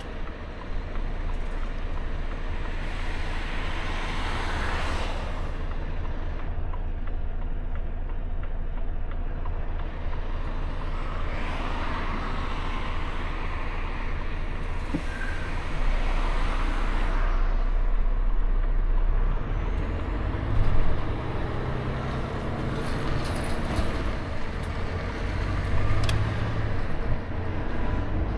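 Volvo FH 460 truck's 13-litre six-cylinder diesel idling steadily inside the cab while other vehicles pass by a few times. From about twenty seconds in, the engine note rises and grows louder as the truck pulls away under power.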